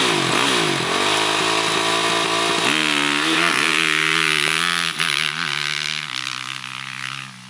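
Motocross bike engine revving with the bike held in place, then accelerating hard away, its pitch climbing and dropping back at each gear change, and fading near the end as the bike moves off.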